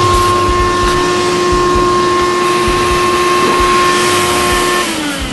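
Vacuum cleaner running with a steady whine over rushing air. It is switched off near the end, and its motor winds down, falling in pitch.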